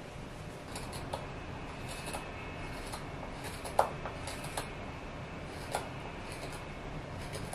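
A carving knife cutting into a small block of birch wood: a series of short, irregular scraping cuts with a few sharp snicks, the sharpest just under four seconds in.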